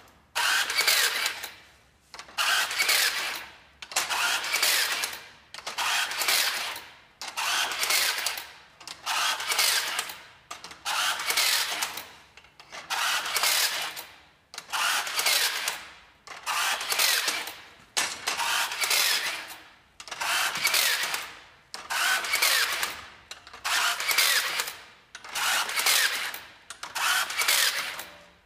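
RT-280 battery-powered rebar tying machine tying rebar intersections one after another: about fifteen tie cycles, one every couple of seconds. Each is a short burst of the motor running as it feeds, wraps and twists the tie wire, starting sharply and fading out.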